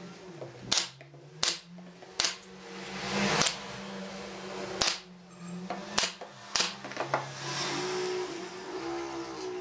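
Pneumatic nail gun firing into pine boards, about eight sharp shots spaced roughly half a second to a second apart.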